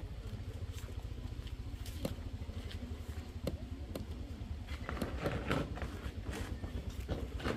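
Steady low rumble of an idling motorbike engine, with soft crinkles and clicks of paper banknotes being handled and counted a couple of times through it.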